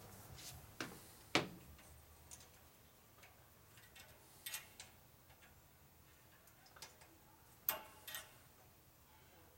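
Scattered sharp metallic clicks of a hand wrench working the head bolts of an air compressor pump, about six ticks with quiet between, some in close pairs; the sharpest come about a second and a half in and near the end.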